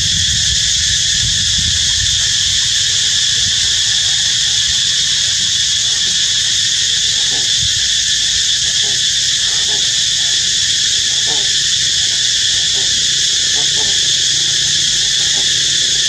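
Loud, steady insect chorus that holds several high pitches without a break. Faint short sounds come and go underneath it in the second half.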